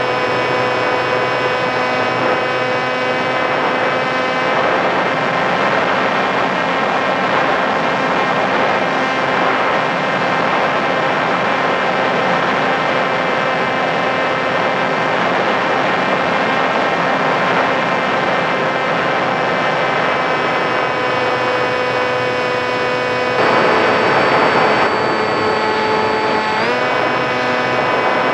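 Sky Surfer RC plane's electric motor and propeller whining steadily, recorded from the onboard camera over a rush of air noise. The pitch steps down a little after three-quarters of the way through and climbs back up near the end.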